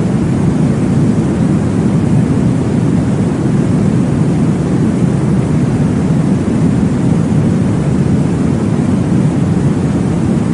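Steady, low, muffled rushing noise of a baby-sleep white-noise track, meant to mimic the whoosh of blood flow heard in the womb. It holds an even level throughout.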